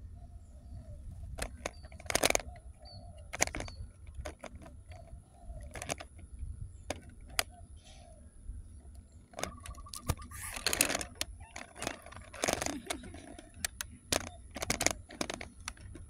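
Irregular clicks, scuffs and rustles close to the microphone over a low rumble. It is handling and rubbing noise from a street cat nosing and brushing against the phone, and the scuffing gets busier in the second half.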